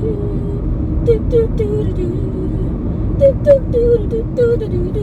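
Steady road rumble inside a moving car's cabin, with a voice singing short melodic notes over it in two bursts.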